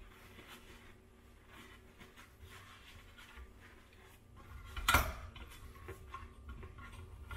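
Handling of a manual stainless steel meat slicer: faint knocks and rubs as a paper-towel-wrapped frozen beef roast is shifted on the slicer's tray, then one sharp metal clack about five seconds in from the slicer's blade lever being taken up.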